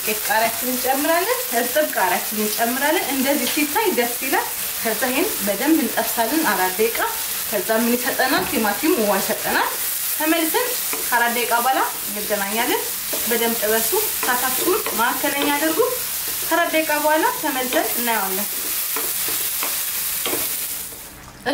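Wooden spatula stirring diced tomatoes, onions and chilli through hot oil in a non-stick frying pan: the vegetables sizzle while the spatula scrapes across the pan in repeated squeaky strokes. The sizzle drops away just before the end.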